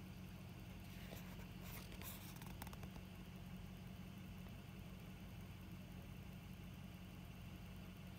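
A faint engine idling steadily as a low hum, with a few light clicks about one to three seconds in.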